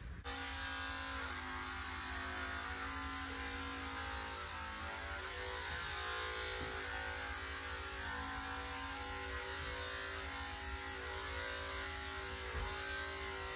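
Electric dog clippers running steadily at one even pitch while trimming a cockapoo's coat, cutting in abruptly right at the start.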